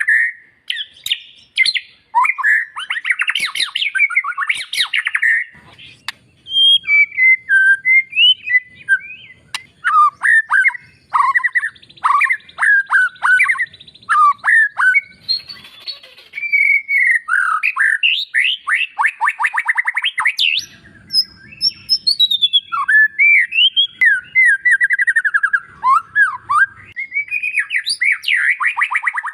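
White-rumped shama singing a fast, varied song of sweeping whistled notes and quick note runs, with some harsher, scratchy notes and short pauses between phrases.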